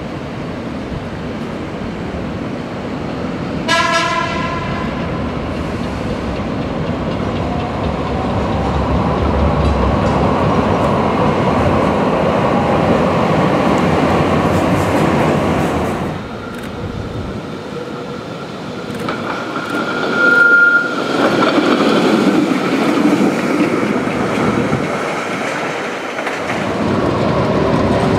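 Streetcars running past on street track, a continuous rumble of wheels on rails, with a short horn blast about four seconds in and a brief single high-pitched tone about twenty seconds in.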